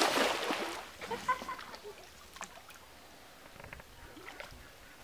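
A short, loud splash as a cast net lands on the water at the start, fading over about a second, followed by faint rustles and clicks.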